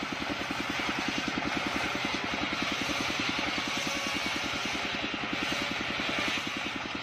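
An engine-driven circular saw table ripping a long sengon (albizia) plank lengthwise. The engine runs steadily with a rapid, even pulsing, under the continuous hiss of the blade cutting through the wood.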